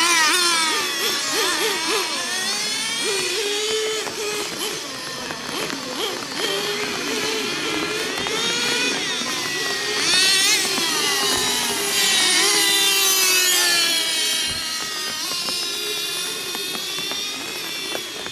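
Several 1/10 scale nitro RC cars' small two-stroke glow engines buzzing at high pitch, each revving up and falling back over and over, their notes overlapping. Loudest from about ten to fourteen seconds in, as cars pass close.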